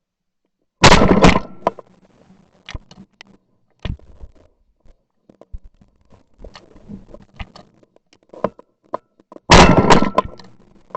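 Two shotgun blasts, one about a second in and one near the end, each with a short decaying tail. Between them, footsteps and rustling in brush.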